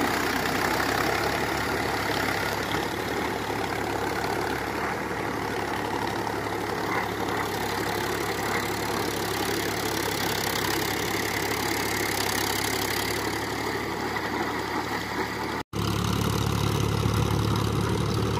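Powertrac Euro 50 tractor's diesel engine running steadily at about 1500 rpm under load, driving a 6-foot rotavator in low third gear through flooded mud. The sound drops out for an instant near the end, then comes back with a stronger low hum.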